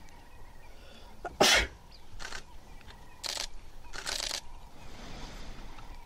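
A run of short, sharp breathy blasts from the animals: one loud blast about one and a half seconds in, then three softer ones over the next three seconds.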